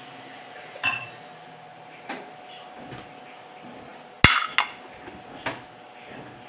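Kitchenware being handled: a few scattered clinks and knocks of dishes and pots, the loudest a sharp clank about four seconds in, over a faint steady hum.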